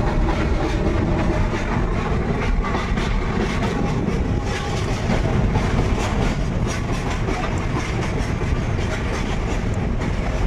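Moving passenger train heard from inside the coach: a steady rumble of wheels on the rails with a light clickety-clack.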